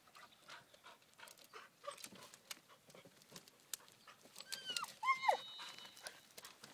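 Dog whining twice in quick succession, high calls that drop in pitch at the end, about four and a half seconds in, while dry branches crackle and snap under her as she climbs through a brush pile.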